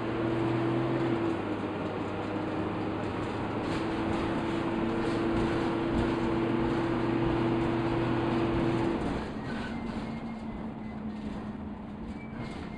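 Dennis Dart low-floor bus with Plaxton Pointer 2 body, heard from inside the saloon while under way: the engine and driveline run with a steady droning whine. About nine seconds in the drone drops away and the cabin quietens as the bus comes off the power.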